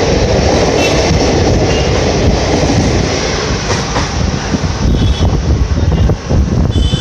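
Indian Railways express passenger coaches passing close at high speed, wheels clattering over the rail joints with a rush of air. The last coach goes by about four seconds in, and the train then draws away.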